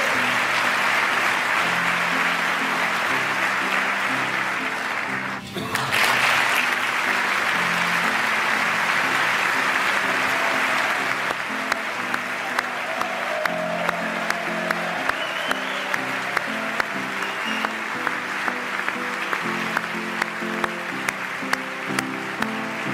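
Large audience in a big chamber giving a standing ovation, with steady clapping over soft instrumental music. There is a brief dip about five seconds in, and the applause thins after about eleven seconds while the music carries on.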